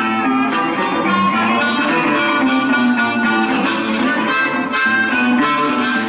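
Blues harmonica played cupped in both hands against a microphone, with sustained, bending notes in a boogie rhythm.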